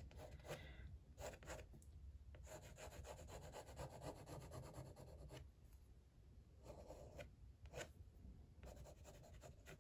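Fine-tip ink pen scratching faintly across textured watercolour paper in quick, light scribbled strokes, with a short lull a little past halfway.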